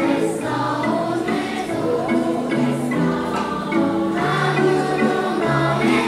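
Choir of children and adults singing with keyboard accompaniment.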